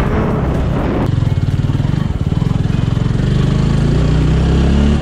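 TVS Apache RTR 200 motorcycle's single-cylinder engine running under way, its pitch rising gradually and then dropping suddenly near the end. Wind rushes over the microphone for the first second.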